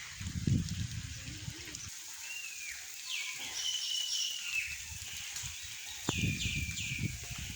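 Birds calling in short chirps, a first falling call about two seconds in and clusters about three seconds and six seconds in, over a low rumbling noise.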